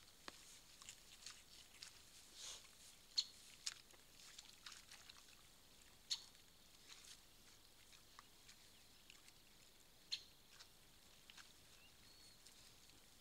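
Faint scattered rustling and small clicks, with a few sharper clicks, from a wild boar sow and her striped piglets rooting and moving through wet grass and mud.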